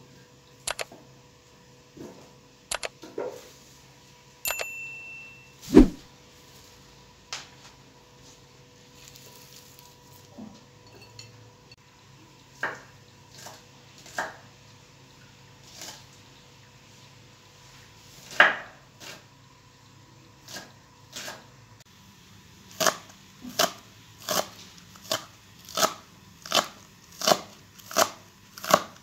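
Kitchen knife chopping chives on a wooden cutting board: scattered knocks and clinks at first, then in the last quarter a steady run of chopping strokes at about two a second.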